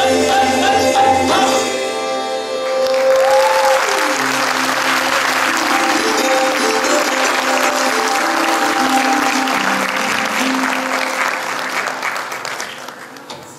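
Live accompaniment for a Kathak dance, singing with instruments, closes in the first couple of seconds. Audience applause then rises and carries on, with a few held instrument notes lingering under it, and fades near the end.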